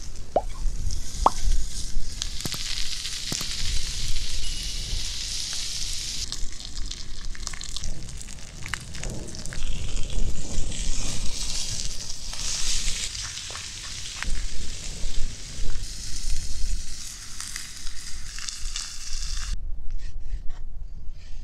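Thick bone-in steaks sizzling on a marble slab heated over a wood fire, with scattered sharp crackles. The sizzling cuts off suddenly near the end.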